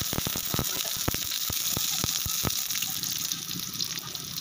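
Chopped garlic and onion sizzling in hot oil in a wok, a steady hiss, with a run of sharp clicks over the first two and a half seconds.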